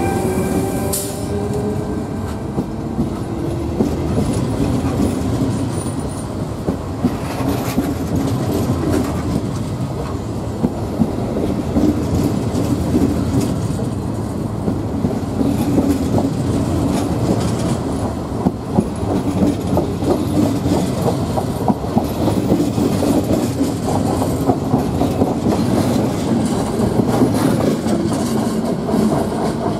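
A train passing by for the whole stretch: a steady rolling rumble of wheels with a rapid, irregular clatter of clicks over the rail joints. A rising whine fades out in the first few seconds.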